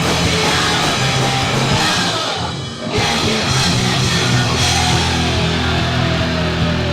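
Punk band playing a loud rock song with drums and guitar, which drops away briefly a little over two seconds in and then comes straight back in at full level.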